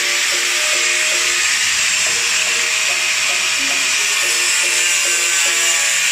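Power cutting tool running at speed and cutting through the rusted sheet metal of a car's rocker panel, a steady loud hiss with a high motor whine that spins up in pitch as it starts. Background music plays underneath.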